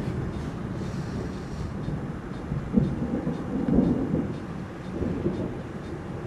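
Distant thunder rolling as a low, drawn-out rumble, swelling louder about three and four seconds in.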